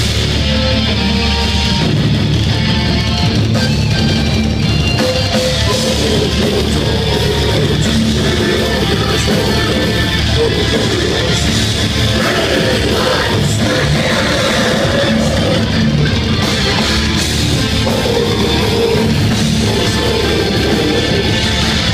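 Death metal band playing live, with distorted electric guitars, bass and drum kit, and vocals over the music from about halfway through.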